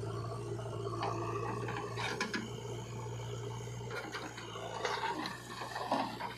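Diesel engine running steadily, with irregular knocks and scraping from a backhoe loader's bucket working wet mud.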